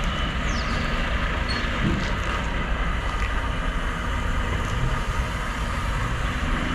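Semi truck's diesel engine running steadily at low speed as the tractor-trailer pulls slowly through a tight turn.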